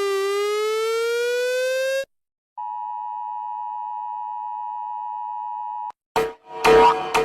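A succession of emergency alert tones. First a buzzy siren tone glides down and back up and cuts off about two seconds in. After a short gap comes the steady two-tone Emergency Alert System attention signal for about three seconds, and near the end loud pulsing alarm blasts start.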